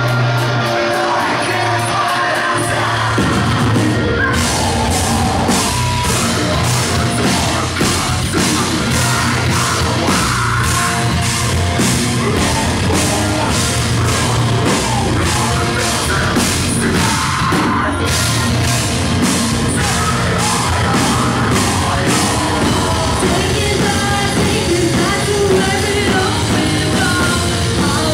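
Live post-hardcore band playing loud: drums, bass guitar and keyboards under male and female vocals, both sung and shouted. The drums come in with a steady beat about four seconds in and keep driving.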